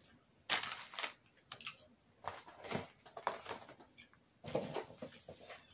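Cardboard snack boxes being handled and set down on a table: a run of irregular knocks, taps and scrapes.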